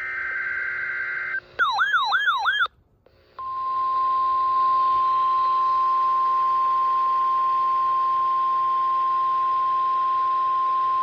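NOAA Weather Radio alert tones for a Required Weekly Test: a short burst of buzzing SAME digital header data, then about a second of warbling alarm tone that sweeps down over and over. After a brief gap, the steady 1050 Hz warning alarm tone starts about three and a half seconds in and holds at one pitch.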